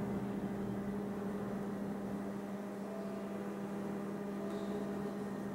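Steady low electrical hum over faint hiss.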